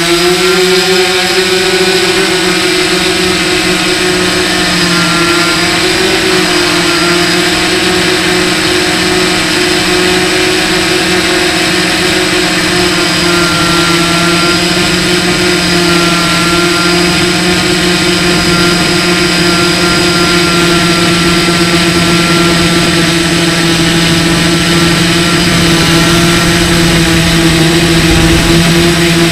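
Brushless motors and propellers of a Q450 quadcopter in flight, heard from its onboard camera as a loud, steady, pitched drone. The pitch shifts slightly in the first second as the quadcopter climbs, then holds.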